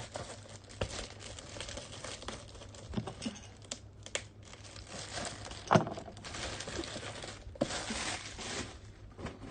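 Packaging being handled and opened: rustling and crinkling, with a few sharp clicks and knocks and a denser burst of rustling near the end.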